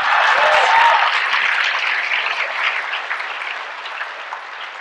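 Large audience applauding, with some voices laughing in the first second; the clapping is loudest at the start and dies away gradually.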